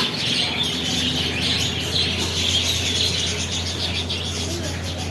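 Many small birds chirping and chattering together in a dense, continuous chorus, over a steady low hum.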